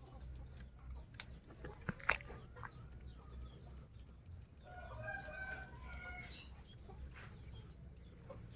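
A rooster crowing once, a call of about a second and a half starting about five seconds in. Before it come a few sharp clicks and knocks.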